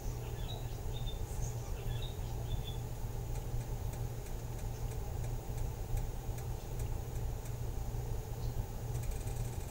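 Steady low hum of kitchen background noise, with a few short, faint high chirps in the first three seconds.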